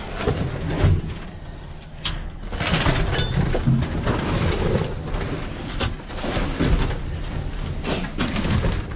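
Rummaging through dumpster trash: irregular rustling and crinkling of paper, cardboard and plastic bags, with scattered knocks as things are shifted.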